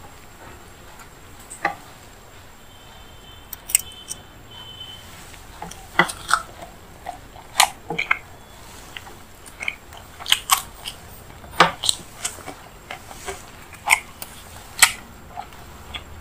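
Chewing and biting on puri and paneer masala: scattered short, sharp mouth clicks and crunches, few at first and coming thick and fast from about six seconds in.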